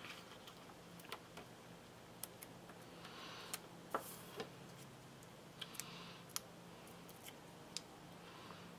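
Faint, scattered light clicks and taps with a few soft, brief rustles: small paper craft pieces and supplies being handled on a desk.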